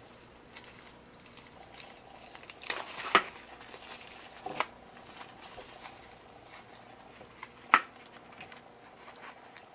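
Bubble-wrap bag crinkling and rustling in the hands as a small display board is worked out of it, with a few sharper crackles about three, four and a half and nearly eight seconds in.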